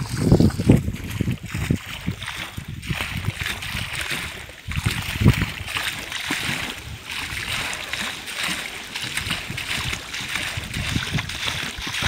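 Air-lift borewell discharge: water driven up by a 2 HP air compressor gushes out of two 1-inch outlet pipes and splashes onto the ground in a steady, hissing splash, with a few louder low thumps in the first second and about five seconds in.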